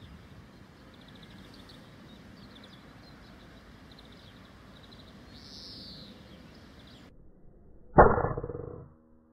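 Small birds chirping over a steady outdoor background, which cuts out abruptly about seven seconds in. About a second later, a single sharp crack from a Weihrauch HW100 pre-charged pneumatic air rifle firing, dying away over most of a second.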